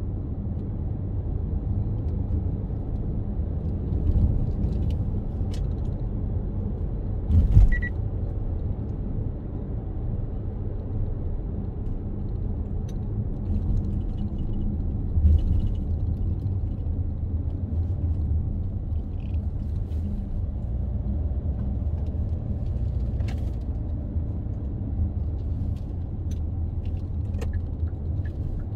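Car driving on a highway: steady low rumble of the tyres and engine, with a few short knocks and rattles from bumps in the road, the loudest about seven and a half seconds in.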